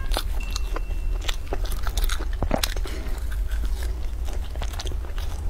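Close-miked mouth sounds of chewing soft, sugar-coated twisted fried bread: irregular wet clicks and smacks over a steady low hum.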